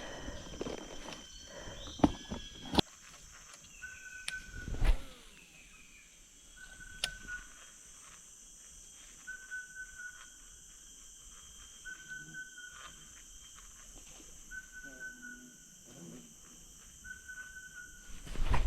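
Outdoor swamp ambience. A short, even-pitched call repeats about every second and a half over a steady high hiss. A few sharp knocks and handling noises come in the first five seconds.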